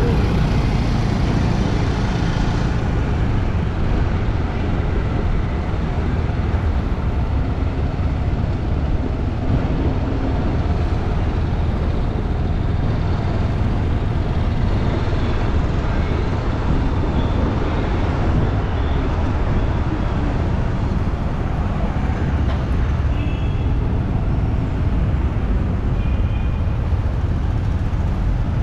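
Steady street traffic noise: a continuous rumble of passing motor vehicles.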